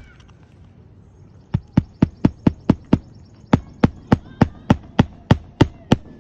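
Quick, even hammer blows, about four a second: a run of seven, a short break about three seconds in, then nine more.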